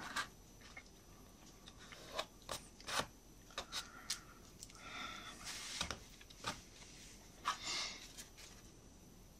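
Faint, scattered small taps and brief rubs of fingers handling and pressing small laser-cut wooden kit parts on a work surface.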